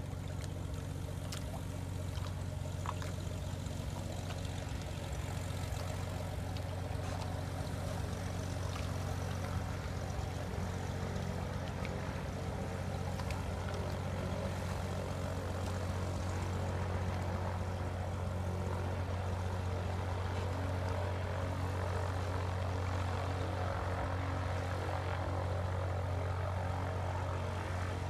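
Small floatplane's propeller engine running steadily as it taxis on the water, slowly growing louder.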